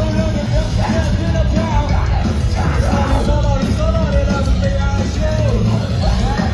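Live rock band playing loudly through a PA, with drums, bass and guitars under a vocal line, heard from within the audience.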